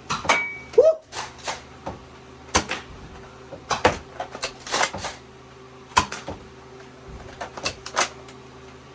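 Nerf blasters being primed and fired, a string of irregular sharp clicks and knocks.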